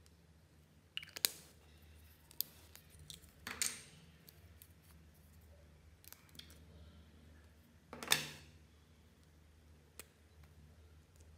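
Handling noises of plastic lipstick and lip balm tubes: several sharp clicks as caps are pulled off and pieces set down, with two longer scraping sounds, the louder one a little past the middle. A faint steady low hum lies underneath.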